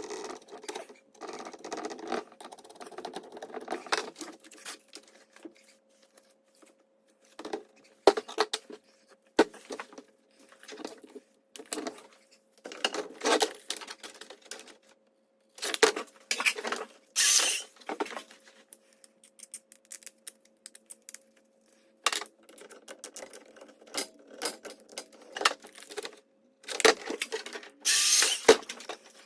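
Small parts and tools being handled: irregular clicks, knocks and rattles with a few brief scraping rustles, over a faint steady hum.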